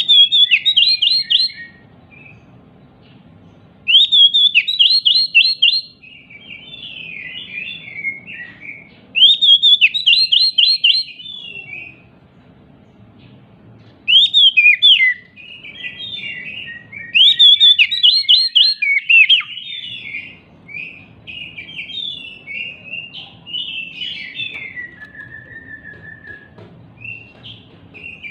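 Oriental magpie-robin (kacer) in agitated full song: five loud bursts of rapid, repeated down-slurred whistled notes a few seconds apart, with softer chattering warble between them. This is the excited song used as a lure recording to prompt other kacer to sing.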